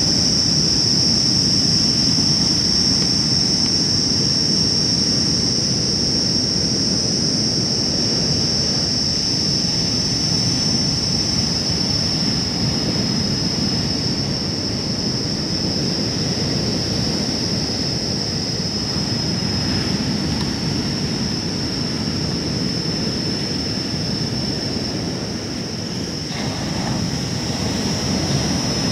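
Steady low rumbling noise with a constant high-pitched whine above it, dipping slightly near the end.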